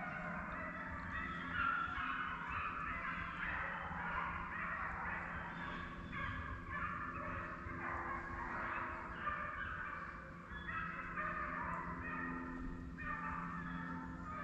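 A pack of deer hounds baying on a running chase, many voices overlapping and calling without a break: the dogs are on a deer's track.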